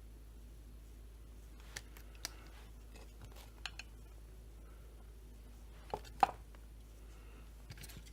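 Light clicks and taps of metal parts and tools being handled, about seven in all and scattered unevenly, the sharpest a pair about six seconds in, over a faint low hum.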